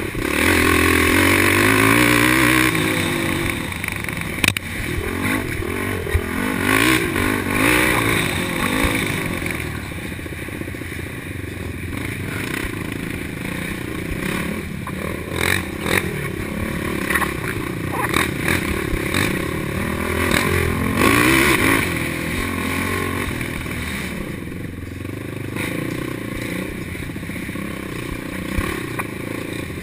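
Racing quad's engine revving up and down as it is ridden hard along a rough trail, loudest and climbing in pitch near the start and again about two-thirds of the way through. Scattered knocks and rattles cut through the engine.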